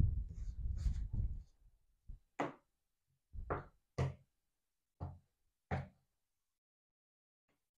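Tarot cards being riffle-shuffled, the bridged deck cascading together in the first second or so. This is followed by about six short, soft knocks as the deck is cut into piles on the table and the stacks are set down and picked up again.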